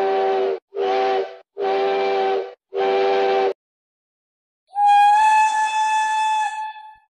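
Steam locomotive whistles. A deep, chord-like whistle stops about half a second in and then gives three short blasts. After a second's pause a different, higher single-note steam whistle blows for about two seconds with a hiss of steam around it.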